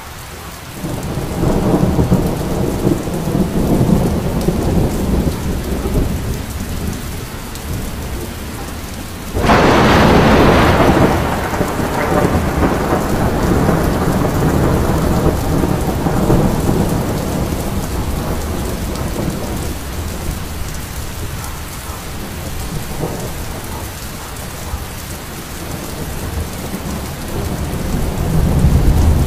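Thunderstorm: steady rain with rolling thunder. Low rumbles swell and fade over the first several seconds, a sudden loud thunderclap about nine seconds in trails off into a long rumble, and another rumble builds near the end.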